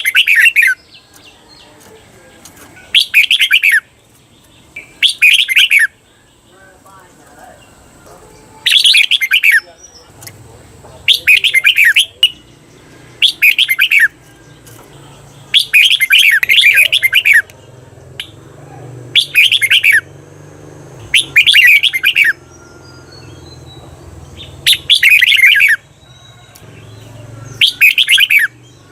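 Red-whiskered bulbul singing its bright, warbled song phrases over and over, about one phrase every two to three seconds, a few of them drawn out into longer doubled phrases. A faint low hum runs underneath.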